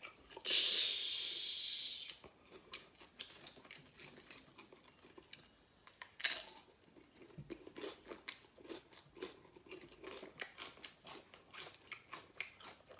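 Close-up crunching and chewing of spicy tortilla chips: a run of small, quick crunches. Near the start there is a loud hiss lasting about a second and a half, and a shorter one about six seconds in.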